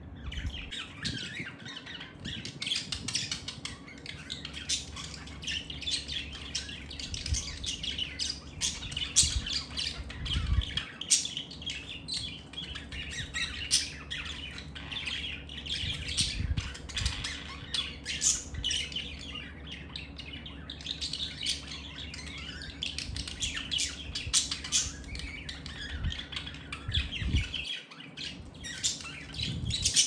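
A pair of budgerigars chattering and warbling nonstop: quick squawks, chirps and sharp clicks, with a short lull about twenty seconds in.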